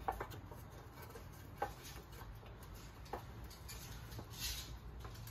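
Light handling sounds of a rubber gasket being pressed into the rim of a plastic transmission pan: three sharp little clicks about a second and a half apart, then a soft rustle.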